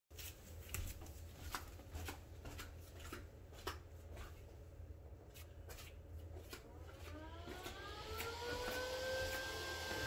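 Neato D7 robot vacuum's motor spinning up: a whine rises in pitch from about seven seconds in and settles into a steady whine with airflow hiss. Before it, scattered light clicks and taps.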